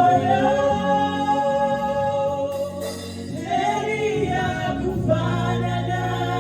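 Gospel worship song: singing with long held notes over a steady instrumental accompaniment.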